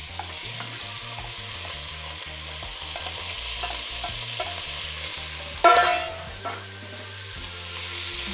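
Diced beef sizzling in very hot oil in an enameled cast-iron pot as it is browned and stirred with a spatula. A single ringing metal clank about five and a half seconds in is the loudest sound.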